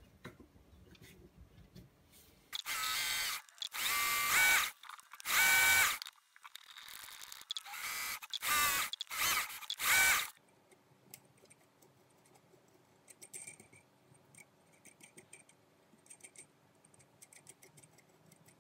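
Lathe's speed-controlled DC motor whining in about eight short bursts, turning the work while a threading die in a tailstock die holder is run over the thread to clean it up. The motor stops about two-thirds of the way in, and faint clicks of the die holder being handled follow.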